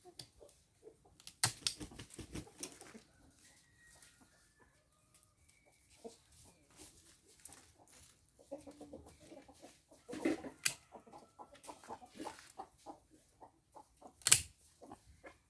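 Free-range chickens clucking, mixed with scattered sharp clicks and snaps; the loudest clicks come about a second and a half in and near the end.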